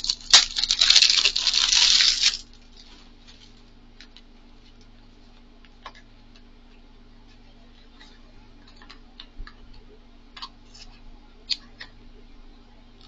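Plastic packaging crinkling loudly for about two seconds and then stopping, followed by faint scattered clicks and taps as the small package is handled and picked at.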